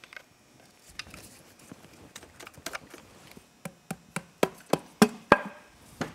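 A mallet tapping on the aluminium bottom pan of a Polaris RZR 900 XP engine to break its sealed joint loose. A few light clicks come first, then about seven sharp knocks in quick succession in the second half, the last ones loudest.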